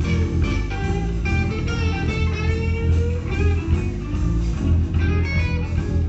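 Live blues band playing, electric guitars over bass and drums, with a lead line that bends and slides in pitch.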